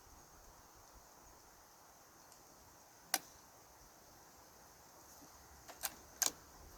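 Sharp metallic clicks from the rifle's bolt action being handled between shots: one about three seconds in, then a quick cluster of two or three near the end, over a steady high drone of insects.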